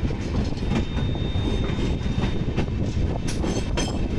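Passenger train running on the rails: a steady rumble with scattered sharp wheel clacks over rail joints and points, several close together near the end.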